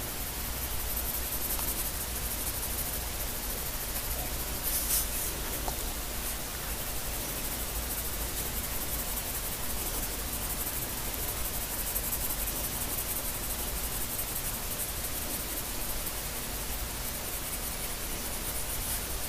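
Graphite pencil scratching on sketchbook paper in hatching strokes as a drawing is shaded, over a steady hiss, with a brief louder patch of strokes about five seconds in.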